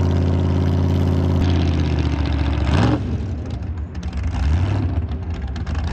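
Loud jet boat engine running at speed with a steady low engine note. A little under three seconds in, the pitch sweeps up briefly as it revs. After that the sound turns rougher and wavering.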